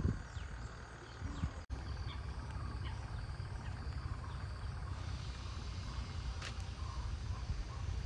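Outdoor ambience by a lake: a steady low rumble with small birds chirping in short repeated calls, more often in the second half.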